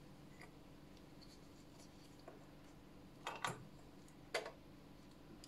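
A few faint clicks and ticks from fly-tying tools being handled at the vise, over a steady faint hum.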